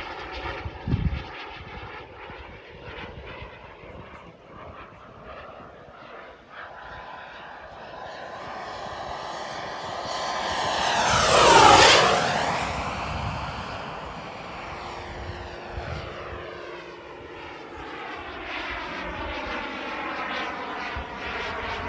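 Behotec 220 turbine of a Tomahawk Futura 2.5 radio-controlled model jet in flight: a steady jet rush that swells into a loud, fast fly-past about twelve seconds in, then fades as the jet climbs away.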